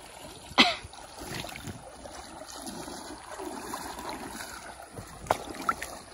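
River water running in a steady wash, with two brief sharp noises, the louder about half a second in and another near the end, as a person climbs onto an inflatable river float.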